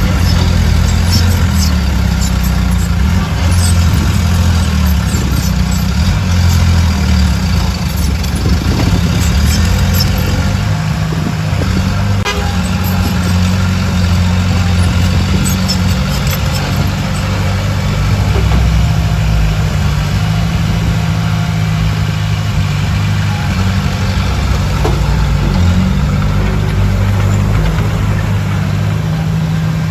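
Heavy diesel machinery running steadily with a deep, low engine drone, with scattered clicks and clanks in the first half.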